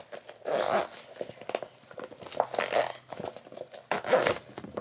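Clear vinyl makeup bag crinkling and rustling as it is handled, in three short bursts with small clicks between.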